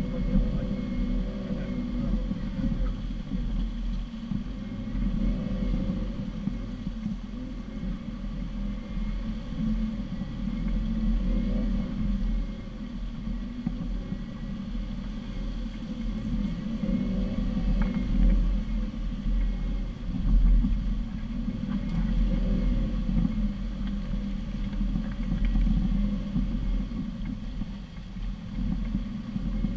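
4x4 engine running at low revs while crawling over a rough dirt track, heard from the hood as a steady low rumble, with an occasional knock from the suspension or body over the ruts.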